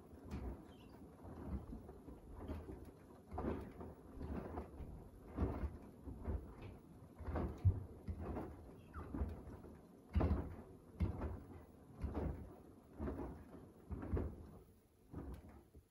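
Beko WDR7543121S washer-dryer's drum turning during the wash, wet, soapy laundry sloshing and flopping over with a swish about once a second. The drum stops near the end and the sound fades out.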